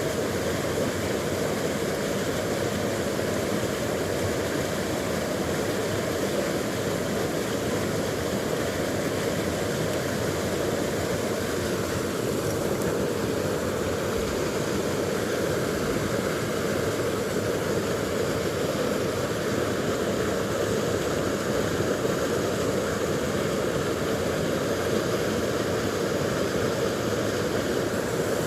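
Steady rush of a rocky stream, water flowing over stones, even and unbroken throughout.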